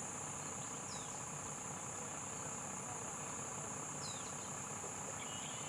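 Steady high-pitched drone of an insect chorus, with a few short falling bird chirps about a second in and again around four seconds.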